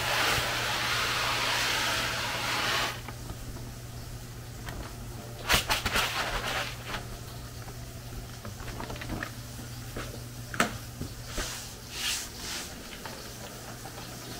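Tofu cat litter pellets pouring from a paper bag into a plastic litter box: a steady rush that stops about three seconds in. After it come scattered rustles and clicks of the litter being spread by hand and the paper bag being handled.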